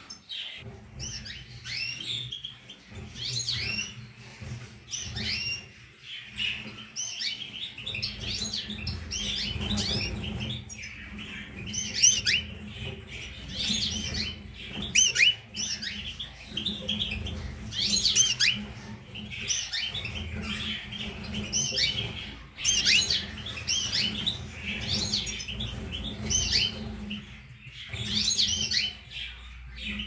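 Caged European goldfinches and canaries singing: a continuous run of quick twittering, warbling phrases, over a steady low hum.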